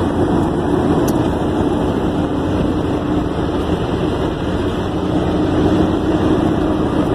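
A moving car's steady road and engine noise, heard from inside the cabin, unchanging throughout.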